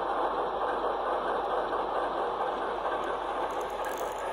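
Steady diesel engine sound from the sound decoder of a Broadway Limited Alco PA N scale model locomotive, played through its small onboard speaker, easing off slightly near the end as the locomotive starts to move.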